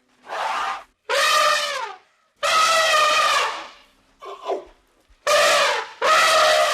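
An animal calling over and over: six loud, drawn-out pitched cries, each half a second to a second long and mostly falling in pitch at the end, with a short, weaker one about halfway through.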